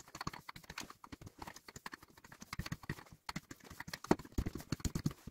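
A rolling pin rolling out a ball of yeast dough on a plastic pastry mat: a quick, uneven run of small clicks and knocks, louder in the second half.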